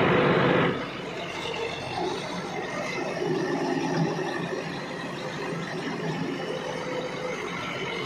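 Backhoe loader's diesel engine running while it works, louder for about the first second, then settling to a steady level.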